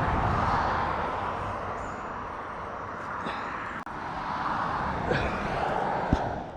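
Vehicles passing on a nearby road: a steady traffic noise that swells and fades twice, with a few short knocks in the last couple of seconds.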